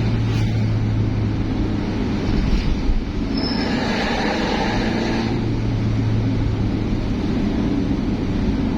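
A road vehicle driving, with a steady engine hum and road noise.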